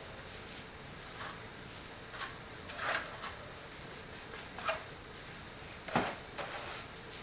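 Steel trowels scraping and slapping wet cement render onto concrete, in a handful of short separate strokes, the loudest about six seconds in.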